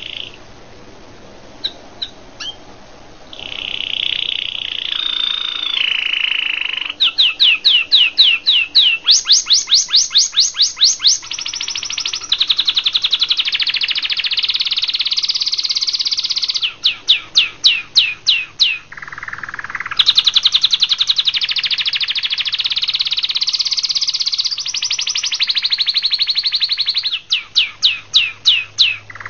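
A canary singing: a few short chips, then from about three seconds in a long, near-continuous song of rapid high trills and rolls. Runs of separate sweeping whistled notes, about five a second, break in several times.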